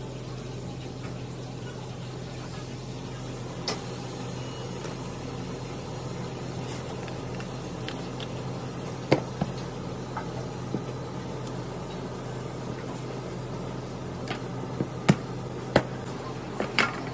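Steady machine hum from kitchen equipment, with a few sharp knocks of a knife and food pieces on a plastic cutting board, most of them in the last few seconds.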